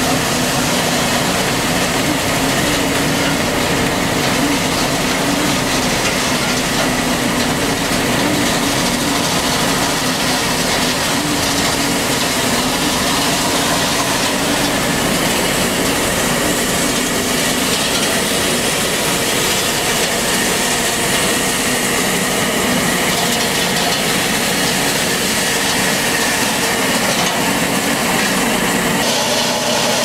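Concrete deck finisher running: a steady mechanical din from its carriage motor and rotating finishing roller working across fresh concrete, with a wavering hum that fades about halfway through.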